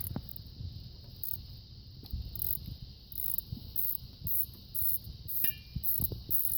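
Socket ratchet wrench clicking in short repeated strokes, about two a second, with a few low knocks of tools against the engine.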